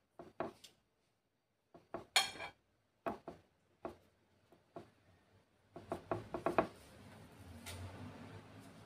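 Scattered light taps, clicks and soft rustling from hands rolling banana in thin wonton wrappers on a wooden cutting board and touching a ceramic plate, with a quick rustle about two seconds in and a run of rapid taps around six seconds. A faint steady low hum sits underneath from about six seconds on.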